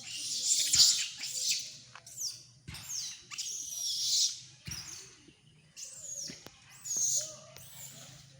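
Monkey squealing in three bouts of high-pitched, shrill calls, each note falling in pitch.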